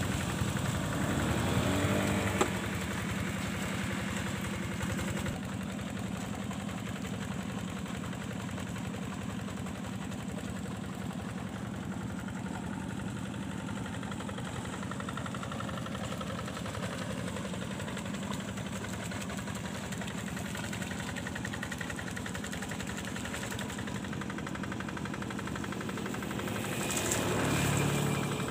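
A two-wheel hand tractor's single-cylinder diesel engine runs steadily with a rapid, even beat as it drags a leveling plank through a flooded rice paddy. It is somewhat louder for the first couple of seconds and swells briefly near the end.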